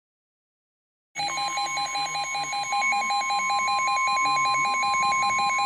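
NOAA Weather Radio alert starting about a second in: a weather radio's rapid pulsing alarm beep over the steady 1050 Hz warning alarm tone, signalling an incoming weather warning.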